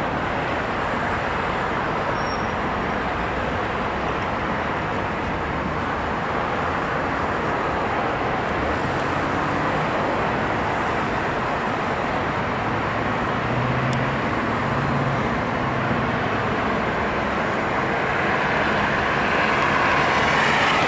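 Steady road traffic noise from cars and a city bus on a busy multi-lane street, a continuous wash of engine and tyre noise that grows somewhat louder near the end.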